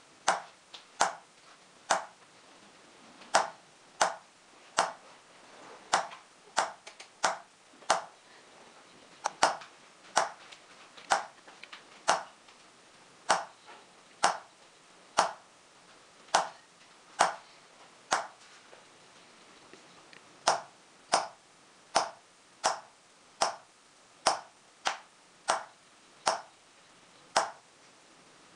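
Small hammer tapping an engraving tool into a silver sheet set in pitch: sharp metallic taps, about one or two a second, unevenly spaced, with a short pause about two-thirds through.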